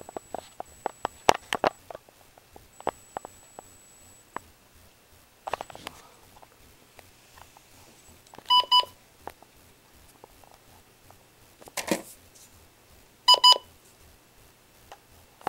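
Weather radio receivers being handled, with scattered clicks and knocks, and two quick double electronic beeps from the radios, one a little past halfway and one near the end.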